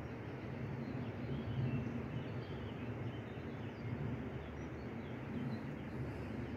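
Open-air ambience: a steady, gently pulsing low rumble, with faint high bird chirps scattered through it.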